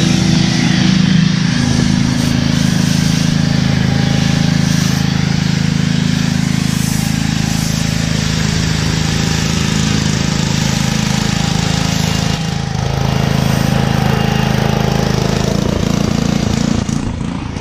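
Gas-engine pressure washer running steadily, with the hiss of a foam cannon spraying soap. The spray hiss breaks off briefly once, about two-thirds of the way through.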